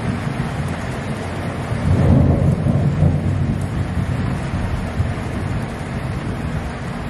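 Thunder rumbling over steady rain; the deep rumble swells about two seconds in and then slowly dies away.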